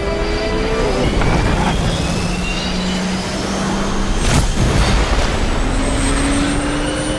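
Fighter jet engines and a sport motorcycle engine running hard in a film-trailer sound mix. Several engine whines rise slowly in pitch, and there is one sharp hit about four seconds in.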